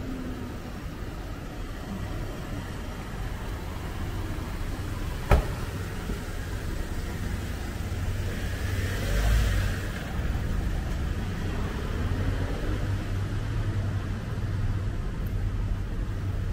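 City street traffic: a steady low rumble of engines and road noise, with a car passing about nine seconds in. A single sharp knock comes a little over five seconds in.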